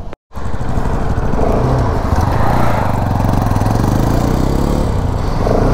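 Motorcycle engine running steadily under way, its pitch nearly level, with an even hiss of wind over it.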